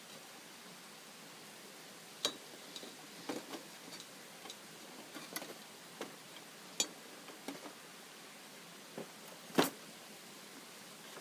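Irregular sharp clicks and light knocks from cooking at a camp grill, about fifteen in all, with one louder knock near the end.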